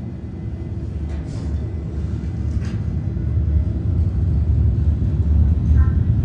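A deep, low rumbling drone that swells steadily louder, with two brief airy whooshes, one about a second in and one near the middle.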